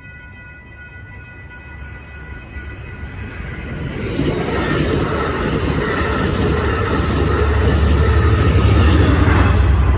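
Amtrak San Joaquins passenger train approaching and running through the grade crossing, growing steadily louder over several seconds into a loud rumble of wheels on rail. It is loudest near the end.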